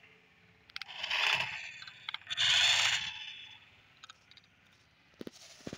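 Toy radio-controlled car moving in two short spurts across a glass shelf, each a brief scraping whir from its small motor and wheels, followed by a couple of light clicks near the end.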